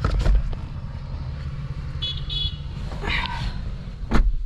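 Lexus LX500d's twin-turbo diesel V6 starting up and settling into a steady low idle. Two short electronic beeps about two seconds in, and a sharp click near the end.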